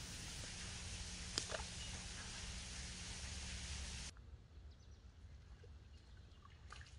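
Faint outdoor ambience at a pond's edge: a steady hiss with a single short click about a second and a half in. The hiss cuts off about four seconds in, leaving a quieter background with a few faint chirps.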